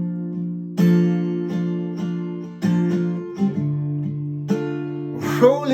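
Acoustic guitar strumming chords between sung lines, a new chord struck about every second or so, each ringing out.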